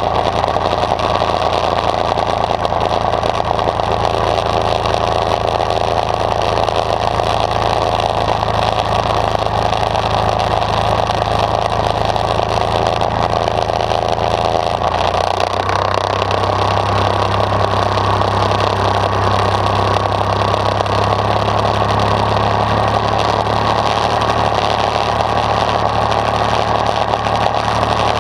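The diesel engine of a 1967 International Harvester IHC 423 tractor running steadily under way, its low note shifting about halfway through.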